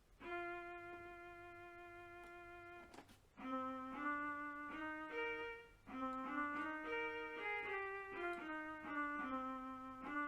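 DEK 610P electronic keyboard played by hand through its built-in speakers. One sustained note is held for about three seconds, then a slow melody of single notes follows.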